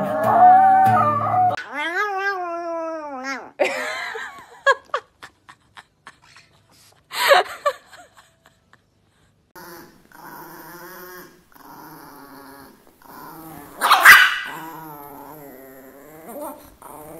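Chihuahuas whining, yipping and growling: scattered short cries at first, then a long low wavering growl broken by one loud sharp yap.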